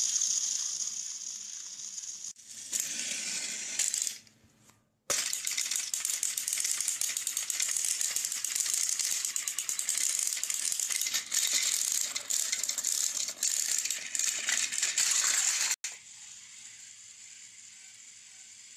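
Battery-powered toy train engines running on plastic track, their small motors and gears giving a busy, high-pitched rattling whir as one engine pushes another. It breaks off briefly about four seconds in, then runs on until it cuts off sharply near the end, leaving a quieter hum.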